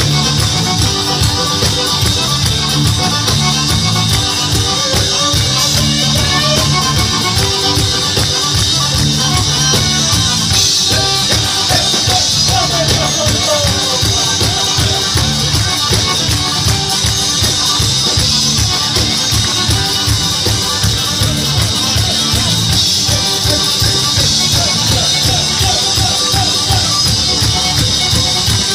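Folk band playing a fast tarantella instrumental passage with a steady, driving beat and no singing.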